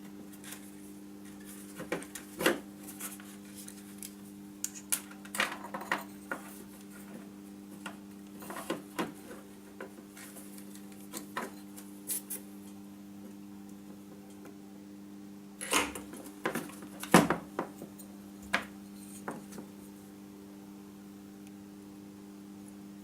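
Small tools and parts being handled on a workbench: scattered light clicks and knocks, in clusters, over a steady low hum.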